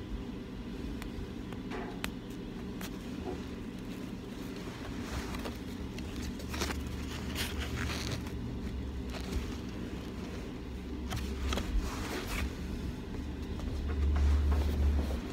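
Hands handling gift packaging: soft scrapes, crackles and light taps of ribbon, card and a cardboard box, bunched mostly in the middle, over a steady low hum. A deeper low rumble comes near the end.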